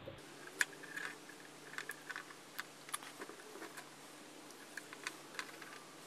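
Faint, irregular clicks and ticks of hands twisting and handling the bare wire leads of a 12 V cooling fan while wiring it to a power supply, black to black and red to red.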